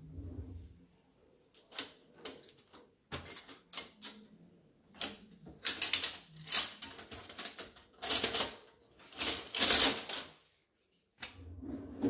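Kitchen handling noise: an irregular run of sharp clicks and knocks with several short, loud scraping clatters, the loudest about two-thirds of the way through.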